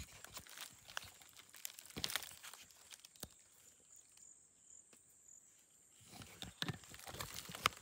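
Dry leaf litter crackling and rustling in short, scattered crackles, quieter for a couple of seconds in the middle.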